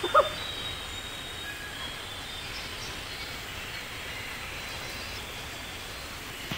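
Steady outdoor background noise, a continuous even hiss with a few faint high chirps through it. A short pitched call or cry sounds once right at the start.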